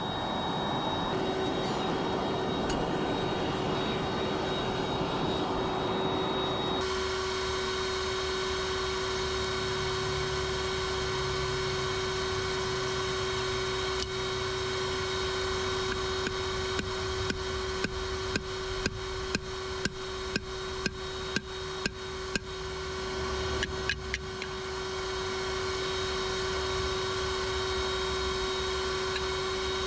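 Steady hum of a forge blower, with about a dozen sharp hammer blows on metal in an even rhythm, roughly one and a half a second, starting a little past halfway.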